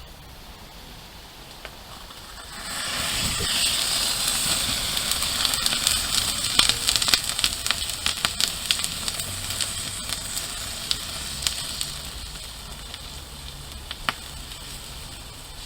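Thermite catching light about two and a half seconds in and burning with a loud hiss and many sharp crackles and pops, dying down over the last few seconds. One sharp crack near the end.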